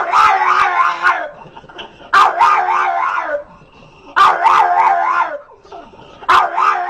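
A pug howling in a string of long, warbling cries with a wavering pitch, each about a second long and roughly two seconds apart: three full cries and the start of a fourth near the end.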